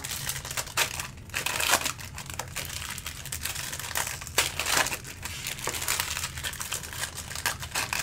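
Foil trading-card pack wrappers being torn open and crinkled by hand: an irregular crackling with a few sharper snaps.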